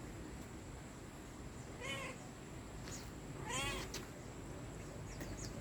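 Domestic cat meowing twice: a short meow about two seconds in, then a longer, louder one about a second and a half later.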